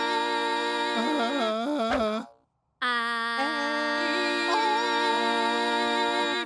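A singing voice holding long, wavering notes, with a quick warbling run of notes about a second in. It breaks off briefly, then holds another long note.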